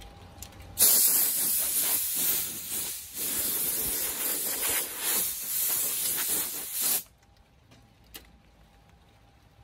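Compressed-air blow gun blasting air in a loud hiss, blowing dust off a PC case side panel. It starts about a second in, dips briefly once, and cuts off sharply after about six seconds.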